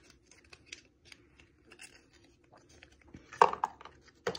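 Small gift packet being opened by hand: light rustles and clicks of packaging, with a louder burst of handling about three and a half seconds in.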